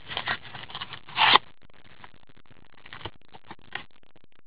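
Trading-card box and pack packaging handled by gloved hands: a few scraping, ripping strokes of torn wrapping in the first second and a half, the last the loudest, then light rustles and taps.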